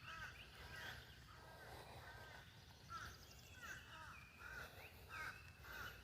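Birds calling faintly: a string of short, arching chirps repeating over a low steady background hum.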